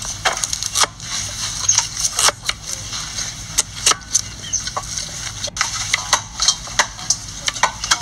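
Cleaver chopping carrots on a thick wooden chopping board: irregular sharp knocks over a steady background hiss.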